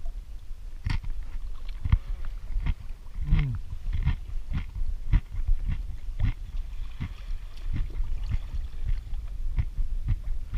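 Crunchy chips being chewed close to the microphone: irregular crackling crunches, with a short hummed 'mm' about three seconds in.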